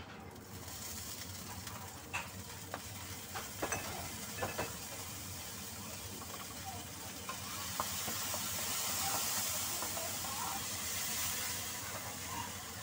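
Chopped garlic sizzling in hot oil in a nonstick frying pan. The hiss starts suddenly, has a few sharp clicks in the first few seconds, and swells louder past the middle before easing off.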